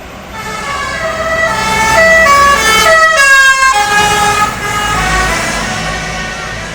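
Tour bus's Basuri telolet horn playing a quick melody of stepped notes. It swells to its loudest a few seconds in and fades near the end, with the low rumble of the passing bus underneath.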